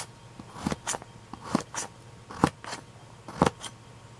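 Kitchen knife slicing through raw carrot onto a thin plastic cutting mat: a crisp crunch and tap with each slow cut, roughly one a second.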